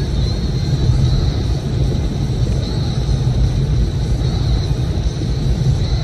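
Nissan Fairlady Z (Z34) cruising along a road: a steady low rumble of engine and tyre noise. A faint high chirp repeats about every second and a half above it.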